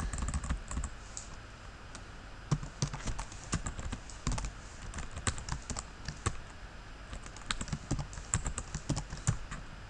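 Typing on a computer keyboard: irregular key clicks, sparse at first and then coming in quick runs.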